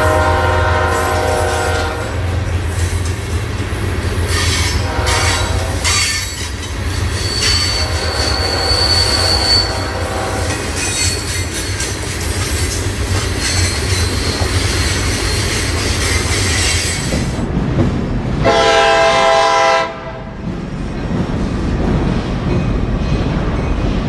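Florida East Coast Railway freight train rolling past with a steady low rumble and wheel clatter. A train horn sounds in the first two seconds, and a thin, high wheel squeal rings for about two seconds near the middle. Near the end, after a change of scene, an approaching passenger train sounds one horn blast of about a second and a half, then rumbles closer.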